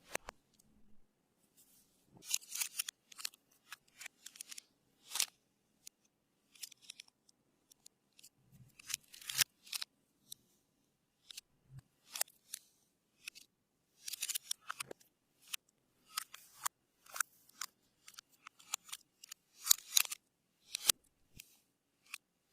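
Clear slime being mixed and squeezed by hand, making irregular clicks and crackles that come in quick clusters.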